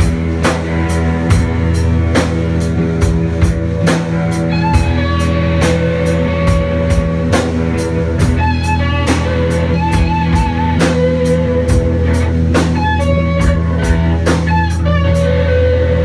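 Live rock band playing: a drum kit keeps a steady beat with cymbal hits about twice a second, under electric guitars holding low notes and playing short melodic phrases.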